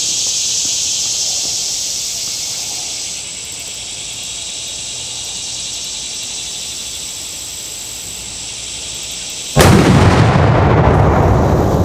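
A steady high hiss, then about nine and a half seconds in a single very loud firework banger goes off, its deep rumble rolling on and slowly fading.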